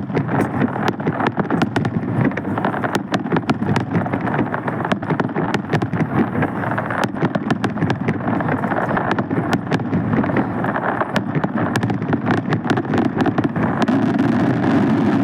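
Steady din of a large outdoor crowd, scattered with many sharp clicks and taps.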